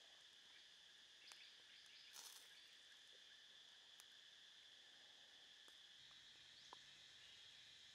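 Faint, steady drone of insects at two fixed high pitches, with a short soft hiss about two seconds in and a few faint clicks.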